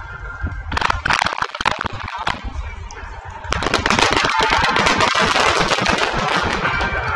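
Fireworks popping and crackling: a quick run of sharp bangs about a second in, then from about halfway a dense, continuous crackle of many rapid pops.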